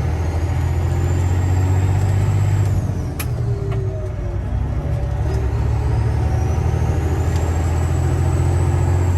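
Semi-truck diesel engine pulling steadily, heard from inside the cab. A high turbo whistle rises and holds, falls away at about three seconds as the engine eases off, then rises again. A single sharp click comes just after the first drop.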